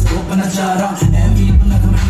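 Live hip hop performance: a man rapping into a microphone over a loud beat with heavy bass. The bass drops out for about the first second, then comes back in.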